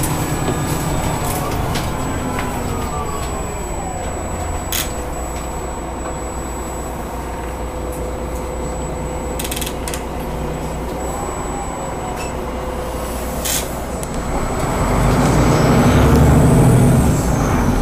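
Cabin noise of a Solaris Urbino 18 articulated city bus under way: the engine and drivetrain run steadily, with a whine that glides down in pitch early on and a few sharp rattling clicks. The running noise grows louder for a couple of seconds near the end.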